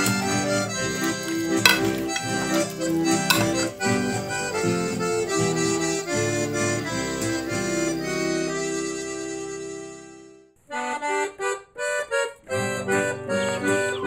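Background music with a steady beat. One piece fades out about ten seconds in, and after a brief break another starts in short choppy bits before running on steadily.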